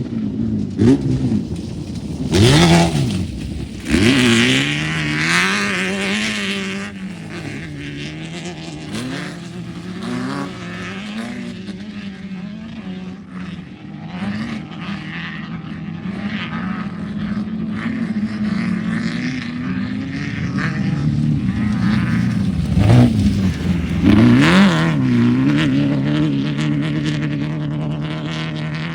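Off-road racing UTV engine running hard, its pitch rising and falling over and over with the throttle. It is loudest a few seconds in and again about 23 seconds in.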